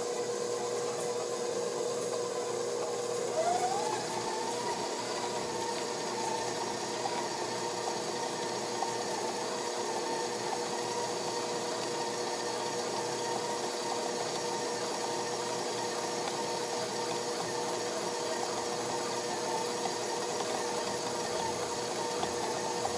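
Electric stand mixer running steadily, its flat beater creaming softened butter and sugar in a metal bowl. The motor tone rises in pitch about three seconds in, then holds steady.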